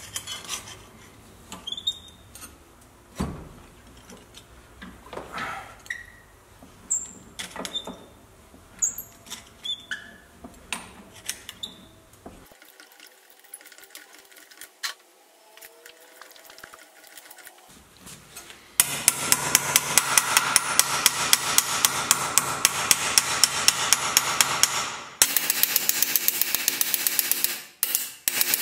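Hand-lever sheet-metal shrinker clamped in a bench vise clicking and clanking as a steel panel is worked through its jaws. From about two-thirds of the way in, a hammer beats the sheet-steel panel held in the vise with rapid, even strikes, several a second, which are the loudest sound.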